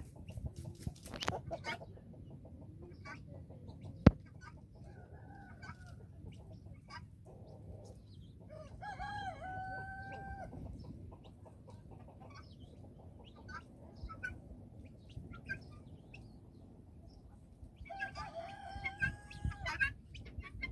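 Rooster crowing twice, once about nine seconds in and again near the end, each crow ending on a long held note. Short scattered calls and ticks fill the gaps, and a single sharp knock about four seconds in is the loudest sound.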